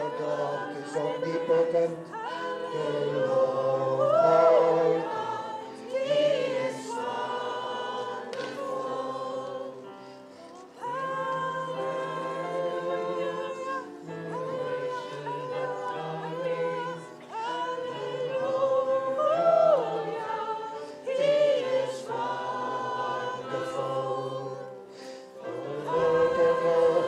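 Mixed choir of men's and women's voices singing in harmony, in long held phrases with brief breaks between them.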